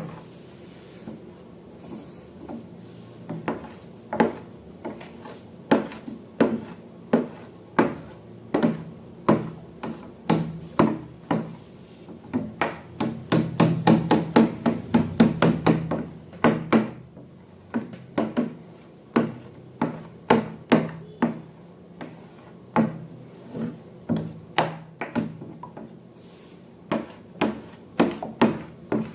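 Slime being squished and worked by hand, making a string of short sticky clicks and pops that crowd into a fast run about halfway through.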